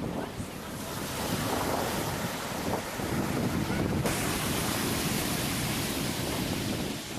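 Ocean surf: a steady rushing wash of waves that swells after about a second and eases off near the end.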